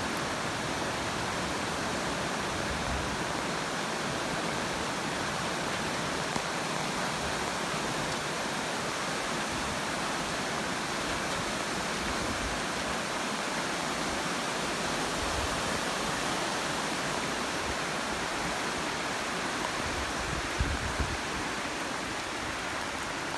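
Steady rush of flowing water, a stream or waterfall running below the bridge. A couple of brief low thumps near the end.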